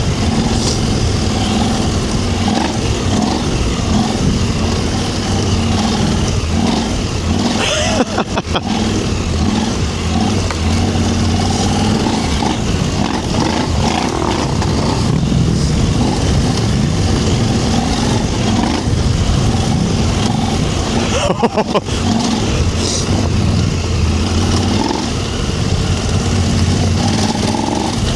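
KTM 790 Adventure R's parallel-twin engine running under way on an off-road trail, with steady wind and tyre noise. The sound briefly breaks up twice, about 8 and 21 seconds in.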